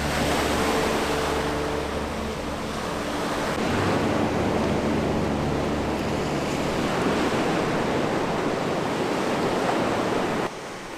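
Sea surf washing onto a beach in a steady rush, with wind on the microphone. Soft held music tones fade out during the first half.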